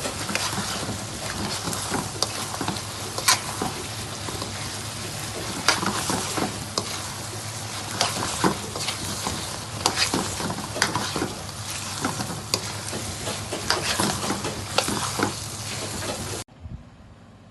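Chicken bhuna frying in a pan with a steady sizzle as it is stirred, the spoon knocking and scraping against the pan in frequent sharp clicks. It stops abruptly about a second before the end.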